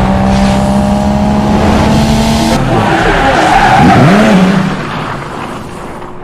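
Loud racing-car sound effect with engine tones and tyre screeching. It starts abruptly, changes sharply about two and a half seconds in, and fades out near the end.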